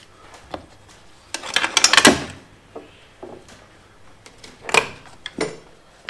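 Racing harness belts being pulled through the slots of a sprint car seat: webbing rubbing and rustling, loudest about two seconds in, with the metal belt hardware clattering against the seat and frame and one short metallic clink near the end.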